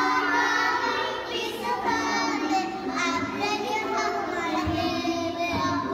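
Young girls singing a song together.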